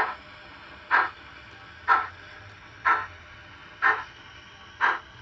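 Steam exhaust chuffs from the Youchoos DCC sound decoder in a Hornby OO model of the Stanier Pacific 'Sir William Stanier', played through the model's small speaker. There is one short chuff about once a second, evenly spaced, six in all.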